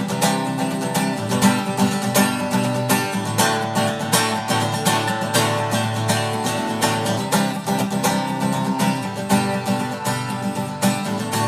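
Instrumental break of a country song: quick picked guitar and banjo over a steady bass line, with no singing.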